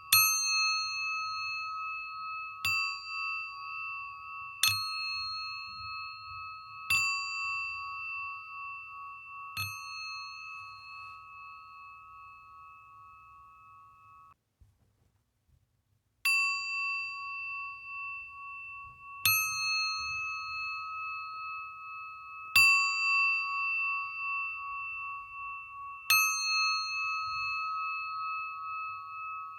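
Singing bowl struck again and again, every two to three seconds, each strike ringing on in a long, gently wavering tone with bright overtones. Midway the ringing dies away to silence for about two seconds before the strikes start again.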